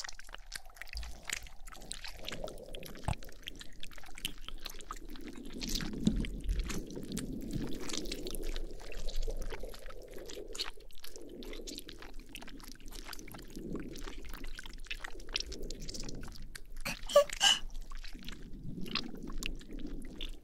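Toy slime squished and kneaded close to a binaural microphone: continuous wet squelching with many small sticky pops and clicks. It is the sound effect for a slime engulfing the listener's whole body.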